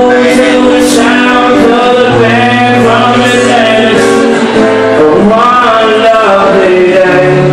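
A man singing live while playing an acoustic guitar.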